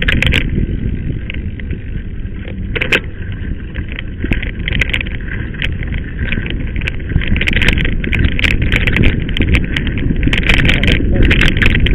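Mountain bike rolling over a rough dirt track: a constant low rumble with irregular rattling clicks and ticks from the tyres and bike on the gravel, busier in the second half.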